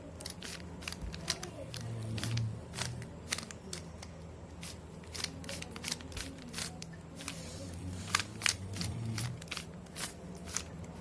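3×3 Rubik's cube being turned quickly by hand: rapid, irregular plastic clicks and clacks of the layers snapping round, several a second. The cube is old and turns stiffly.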